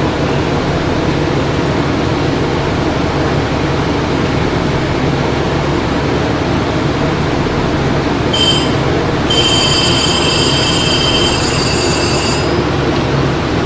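Passenger train running past with a steady rumble of wheels on rail. About eight seconds in, a brief high-pitched metallic squeal, then a longer squeal for about three seconds.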